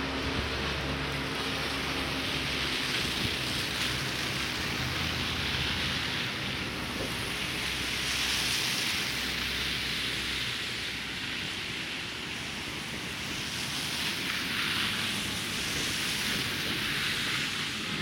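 Street traffic in slush: car tyres hissing through wet snow as vehicles pass, over the low hum of engines. The hiss swells twice, as cars go by about halfway through and again near the end.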